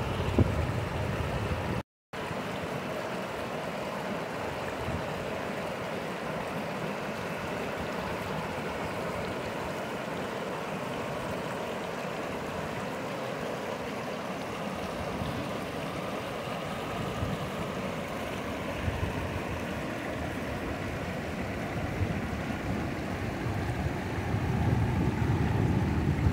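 River water rushing steadily over a small rocky rapid. A brief drop-out about two seconds in; near the end a low wind rumble on the microphone grows.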